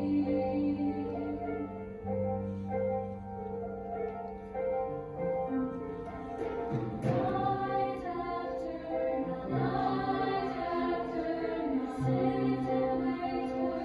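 A choir singing a slow piece in sustained chords, with the voices holding long notes that change every second or two.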